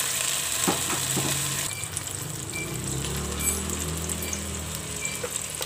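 Shrimp and moringa fritters frying in shallow hot oil in a wok, with a steady dense sizzle and crackle. The sizzle drops quieter about two seconds in.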